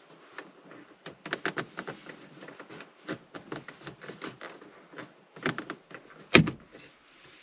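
Shift boot surround being pried out of the Porsche 997.2 centre console with a plastic pry bar: a run of plastic clicks, scrapes and knocks, with one loud sharp click about six seconds in.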